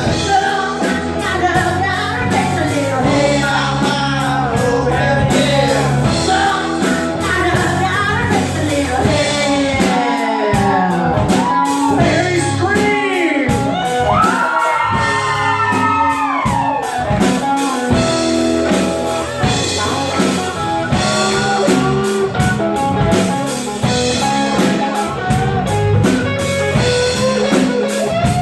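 A rock band playing a blues-rock song, with a singer and electric guitar over a steady beat; a run of bending, sliding notes stands out in the middle.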